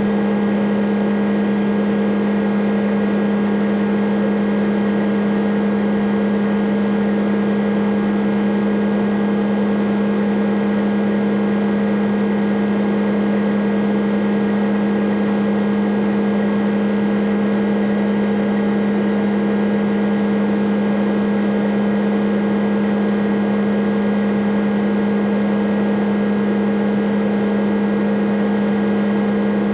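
Hitachi ZX210 excavator's diesel engine and hydraulics running at a steady, unchanging drone with one strong low tone.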